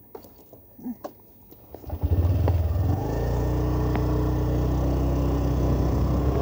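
Motorcycle engine, loud from about two seconds in and then running steadily as the bike rides on; before that only a few faint clicks.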